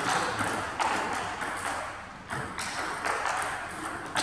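Table tennis rally: a series of sharp pinging clicks as the ball is struck back and forth by the paddles and bounces on the table.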